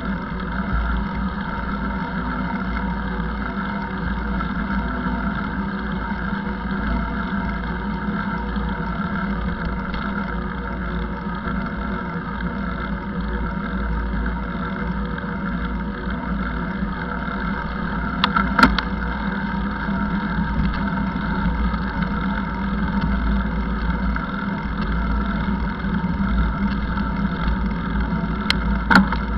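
Steady rumble and hum of a ride along a paved bike path, picked up by a camera mounted on the moving vehicle, with a sharp knock about two-thirds of the way through and a couple more near the end.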